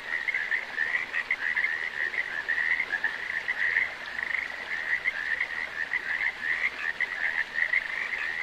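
A chorus of frogs calling, many rapid trills overlapping at about the same high pitch.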